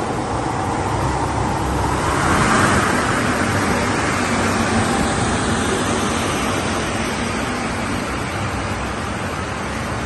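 WTQX3000 glass washing machine running on test, a steady machine noise with no distinct rhythm.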